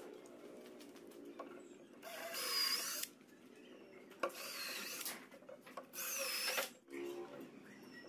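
Makita cordless drill running in three short bursts into pine boards, its motor pitch wavering within each burst, with a sharp click just after four seconds.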